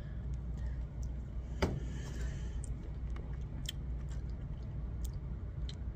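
Small taps and clicks of a metal spoon and glass sauce bottle being handled while thick sauce is poured, the sharpest tap a little under two seconds in, over a steady low room hum.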